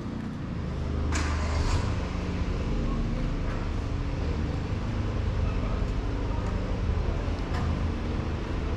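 Road traffic: a motor vehicle's engine running close by as a steady low rumble that swells about a second in, with a few brief sharp clicks.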